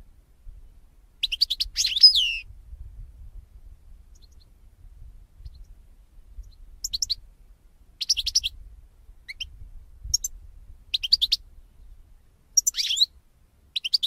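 European goldfinch singing high-pitched twittering phrases: one longer phrase about a second in, then a run of short bursts separated by pauses. A faint low hum lies underneath.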